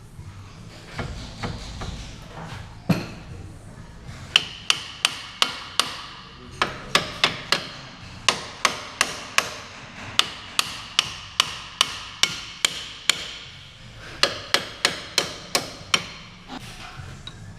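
Hammer blows on metal during a car's front brake job: a few light knocks and one sharp blow, then repeated runs of quick blows at about two to three a second with short pauses between, each blow ringing briefly.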